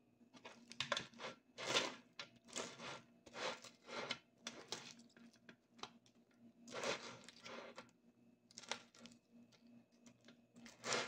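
Wooden spoon spreading sticky caramel-coated popcorn across a tray: a string of short rustling, scraping strokes, about one or two a second, with a couple of brief pauses.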